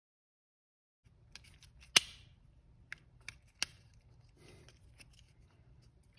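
Sharp plastic clicks and light handling noise as the two halves of a Honda key fob's case are pressed and snapped back together, the loudest snap about two seconds in and a second one a moment later.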